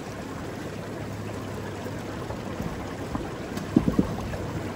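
Steady rushing of a mountain river, with a few short knocks about three and a half seconds in.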